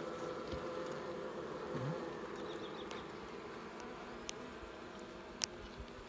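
Honeybees buzzing on the open comb of a top-bar hive: a steady, even hum from the colony that fades a little toward the end. Two faint sharp ticks come in the second half.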